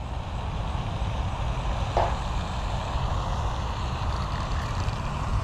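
Steady low rumble with a faint hiss of outdoor background noise, with one brief short sound about two seconds in.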